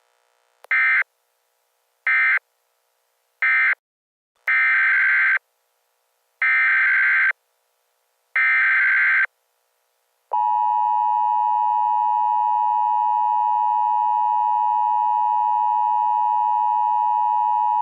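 Electronic alert beeps: three short beeps, then three longer ones, then a steady alert tone that begins about ten seconds in and holds, like an Emergency Alert System attention signal.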